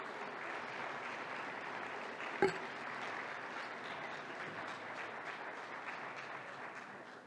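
Audience applauding, slowly fading toward the end, with one sharp knock about two and a half seconds in.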